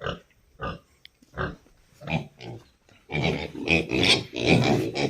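Pigs grunting: short separate grunts at first, then a louder, almost unbroken run of grunts from about three seconds in.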